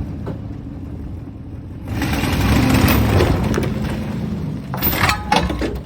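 An engine running steadily, with a loud crash of noise about two seconds in that lasts a couple of seconds, then a few sharp metallic clanks near the end.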